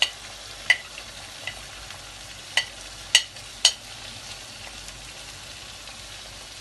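Food frying in a pan with a steady sizzle while a spoon or spatula stirs it, striking the pan in sharp clinks about six times over the first four seconds.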